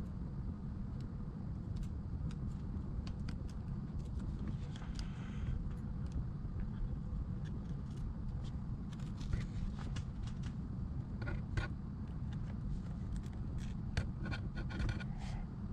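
Scattered light clicks and taps of small repair tools handling an iPad, more frequent in the second half, over a steady low hum.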